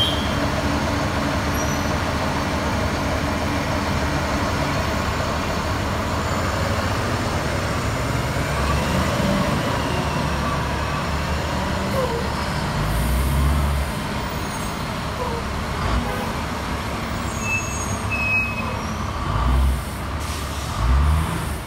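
2009 Orion VII NG city transit bus idling at a stop, a steady engine hum, then its engine rising in pitch as it pulls away into street traffic. Several low thumps come in the second half.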